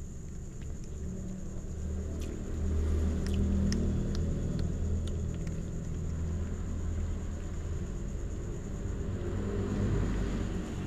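A steady low rumble, with faint sharp clicks of cats chewing fish scattered through it.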